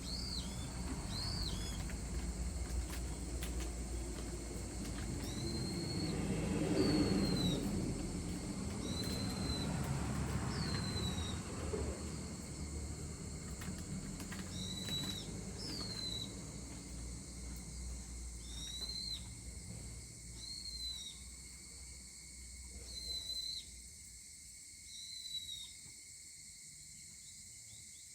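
Countryside evening ambience. A steady high insect drone runs underneath a short, high arched call that repeats every second or two. A low rumble swells in the first half and fades away.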